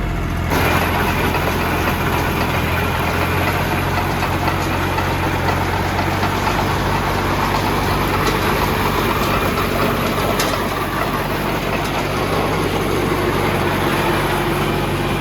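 Tractor engine running steadily at a constant speed, driving a Siromer P10 round baler as it picks up and bales grass. A single faint click about ten seconds in.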